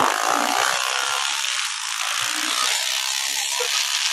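Small 110cc dirt bike engines buzzing at riding speed, under a steady hiss of wind and dirt.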